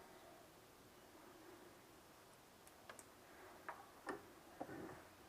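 Near silence, with a few faint, short clicks and taps in the second half, about five of them, irregularly spaced.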